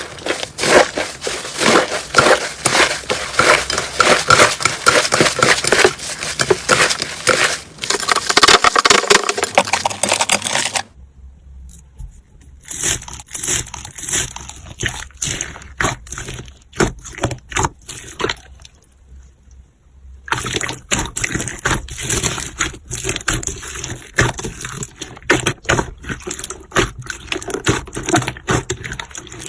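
Slime being squeezed and poked by hand, giving rapid crackling, squelching and popping clicks. The sound goes soft and sparse for several seconds in the middle, then picks up densely again.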